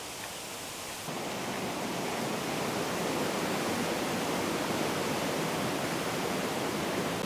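Steady rushing of flowing water, coming in abruptly about a second in after a moment of quiet rustling.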